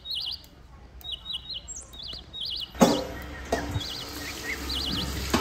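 A small bird chirping a repeated trilled call throughout. About halfway through there is a sharp knock, then a kitchen tap's water rushes into a steel sink, with a few more knocks as the greens and basin are handled.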